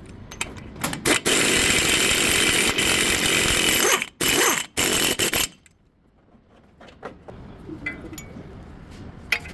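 A power tool run in a few short bursts, then held for about three seconds, then two more short bursts before it stops.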